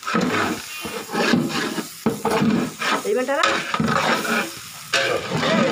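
A long metal paddle stirring and scraping through rice in a large metal pot of biryani, with people's voices talking over it.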